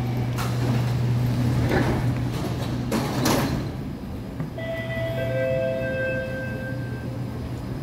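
Train doors and platform screen doors sliding shut on a metro train, with thuds as they close about three seconds in, over the standing train's steady hum. After the doors shut, several steady tones sound together for about two seconds.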